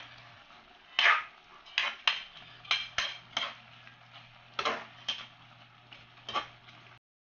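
Spatula scraping and clacking against a wok while stir-frying water spinach, in quick irregular strokes, about nine in all, over a faint steady hum.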